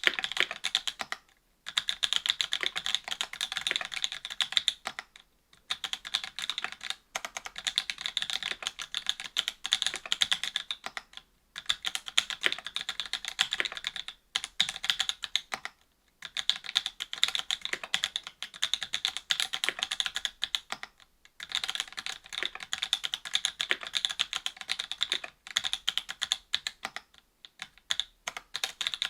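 Continuous fast typing on a mechanical keyboard with stock NovelKeys BOX Cream linear switches, GMK keycaps and an FR-4 plate: dense, crisp clacks in runs of a few seconds, broken by brief pauses.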